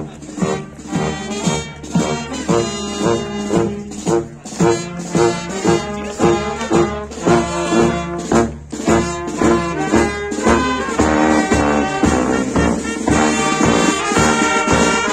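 Brass band playing a march, trumpets and trombones over a steady beat of about two strong beats a second.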